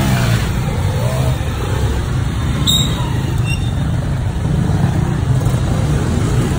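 A line of small motorcycles riding past close by one after another at low speed, their engines running steadily.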